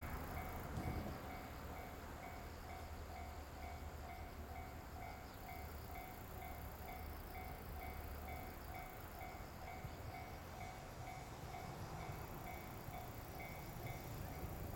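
Japanese railway level crossing warning bell ringing steadily at about two strikes a second, signalling that the crossing is closed for a train.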